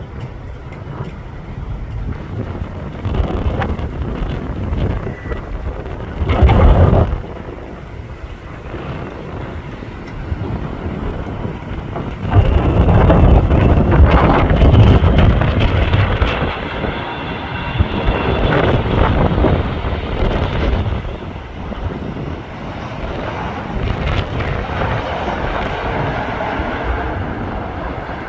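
Heavy wind buffeting the microphone in uneven gusts, over the jet engines of an Airbus A380-861, Engine Alliance GP7200 turbofans, on its landing approach. A short loud gust comes about six seconds in, and the loudest stretch runs from about twelve to sixteen seconds in.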